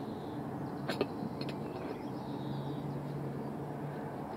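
Light clicks and knocks, the sharpest about a second in, as a scythe nib's iron hoop and wooden handle are handled against a wooden block, over outdoor background with a low distant engine hum in the second half.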